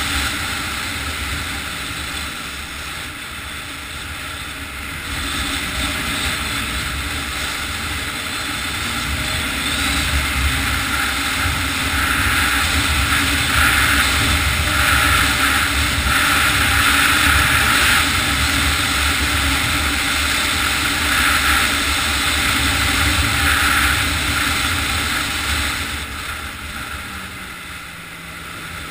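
Snowmobile engine running as the sled travels along the trail. It grows louder through the middle and eases off near the end, where the engine note drops as it slows.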